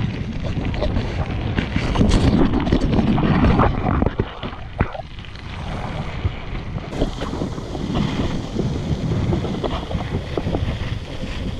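Wind buffeting the microphone of an action camera on a moving bicycle, a heavy low rumble, with tyre noise on the gravel trail and a few short knocks from bumps. It is quieter for a few seconds near the middle.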